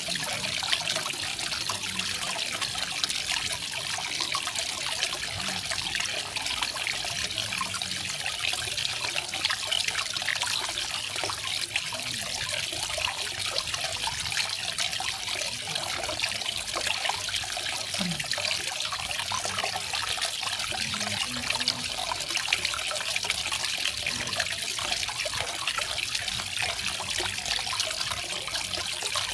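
Garden waterfall: water falling and trickling steadily, an even bright splashing hiss with no breaks.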